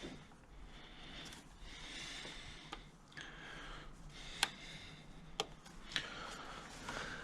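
Soft handling rustle with four short sharp clicks spread over a few seconds: new ignition lead connectors being pushed home onto the ignition coil and plugs.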